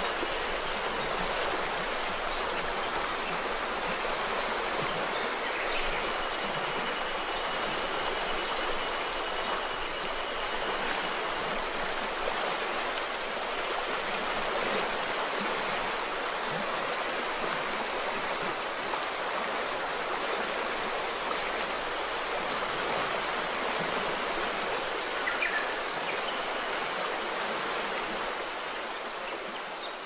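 A stream's water flowing steadily in an even rush, with a faint high thin tone coming and going and a brief chirp near the end.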